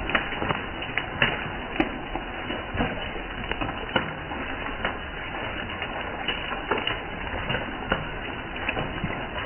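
Steady rain falling, with irregular sharper ticks of drops landing close by, roughly one a second.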